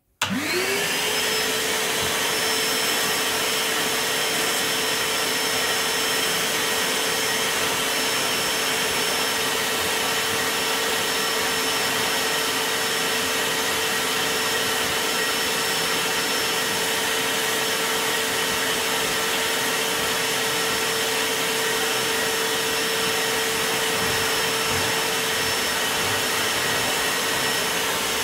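Dexter Power 1400 W wet-and-dry workshop vacuum switched on, its motor spinning up within the first half-second and then running at full power with a steady whine, vacuuming a carpet.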